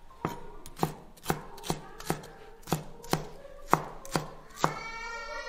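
Chinese cleaver chopping spring onions on a wooden cutting board: about ten sharp knocks, roughly two a second.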